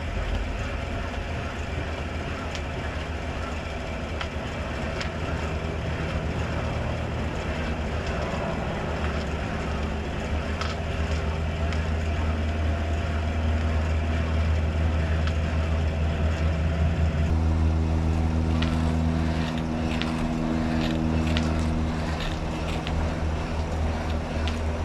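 GMC Sierra 1500 pickup running, a steady low engine rumble. About two-thirds of the way through, a steady higher hum joins in, with scattered light ticks near the end.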